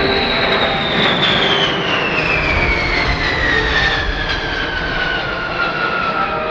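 Boeing B-52H Stratofortress's eight Pratt & Whitney TF33 turbofan engines heard in a low pass overhead: loud, steady jet noise with a high whine that slides steadily down in pitch as the bomber goes by.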